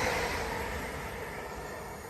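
Running noise of a passing train fading steadily as it draws away.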